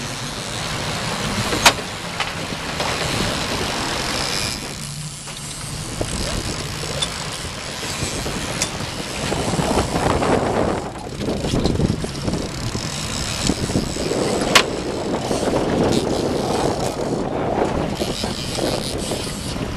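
Steady wind and choppy-sea noise around a small open fishing boat, with two sharp clicks, one under two seconds in and one about fifteen seconds in.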